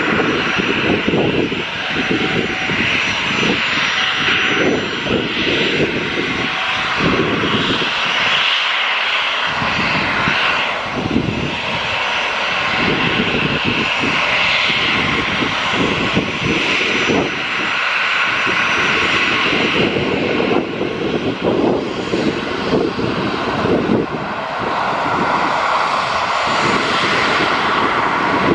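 Twin turbofan engines of a NAM Air Boeing 737 running at taxi power as the jet rolls slowly along the runway: a steady jet whine and rush, with wind buffeting the microphone in uneven gusts.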